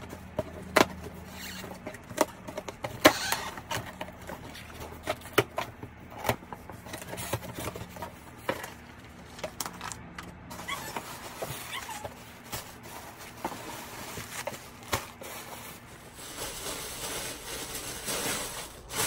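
A cardboard shipping box being opened by hand: packing tape and flaps pulled apart, with sharp clicks, scrapes and cardboard creaks. Near the end comes a denser rustling of paper packaging as hands dig through the contents.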